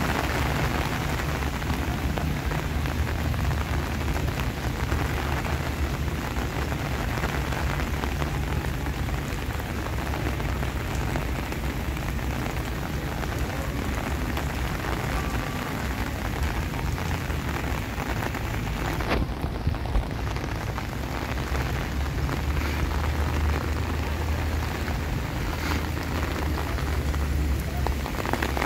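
Steady, heavy rain falling, with a low rumble beneath it. One sharp click about two-thirds of the way through.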